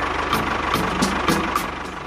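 Small engine idling with a steady, rapid putter, under background music with a regular beat.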